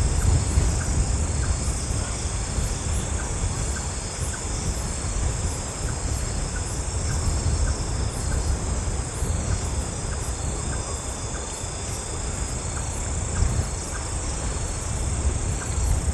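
Strong wind rumbling with a steady low rumble that swells and eases, over a steady shrill chorus of night insects such as crickets.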